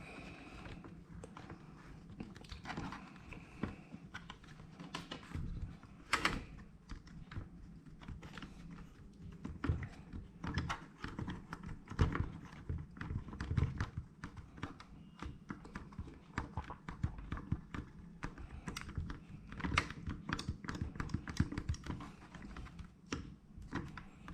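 Hands fitting and adjusting a plastic GoPro mount on a helmet: irregular light clicks, taps and knocks.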